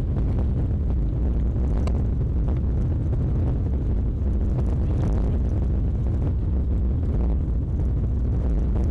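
Car driving along a rough gravel track, heard from inside the cabin: a steady, deep rumble of engine and tyres on the loose surface, with a single faint tick about two seconds in.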